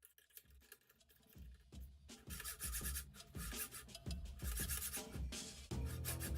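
Background music that starts faint and grows louder about a second and a half in, with steady low notes and a scratchy upper layer.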